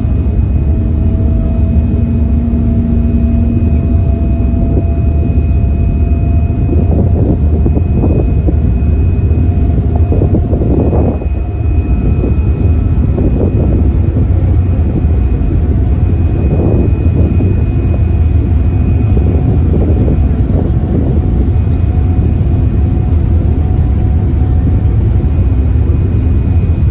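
Passenger ferry under way: a loud, steady, low engine drone with a faint, steady, high whine over it.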